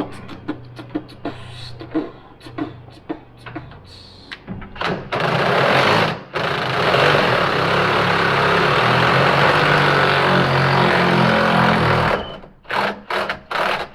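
A socket wrench ratcheting in quick irregular clicks, then a power impact wrench hammering hard for about seven seconds on a cab hold-down bolt, stopping abruptly. More ratchet clicks follow near the end.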